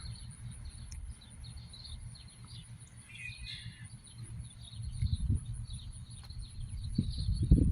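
Outdoor ambience: scattered bird chirps over a steady high insect buzz, with low rumbling noise that swells in gusts near the end.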